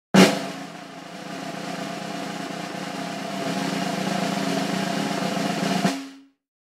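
Intro sound effect laid over a title card: a sudden hit, then a sustained noisy swell with a few steady tones that slowly grows louder and fades out about six seconds in.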